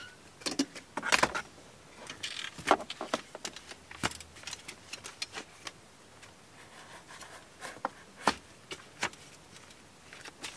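Folding camp table's metal frame and fabric panels being unfolded and set in place: a run of irregular clicks, knocks and rattles, the loudest about a second in and around three and four seconds, with a few more near the end.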